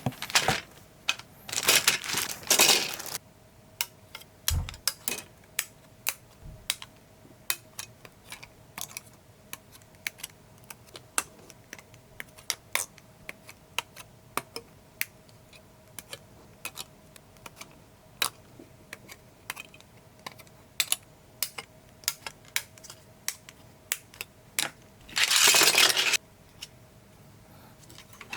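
Typing on an Akko ACR Top 40 mechanical keyboard with Gateron Pro Milky Yellow linear switches and clear keycaps. A fast run of keystrokes opens, followed by single key presses spaced out, then another quick burst of typing near the end.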